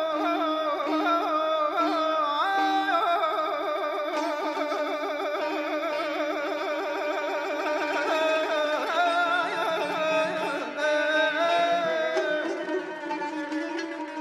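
A male voice sings an Azerbaijani mugham-style song. He holds a long wordless line that wavers rapidly in pitch, over tar and kamancha accompaniment.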